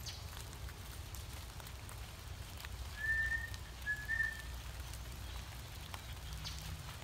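A person whistling two short notes about a second apart, the first rising slightly in pitch.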